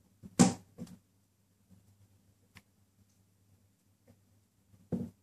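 A few sharp plastic clicks and knocks as a small retaining part is pressed onto a Parrot AR.Drone 2.0 propeller shaft, the loudest about half a second in and another near the end.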